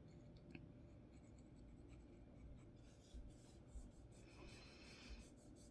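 Near silence with faint, soft rubbing as oil is worked into a micarta knife handle, a little stronger about four seconds in.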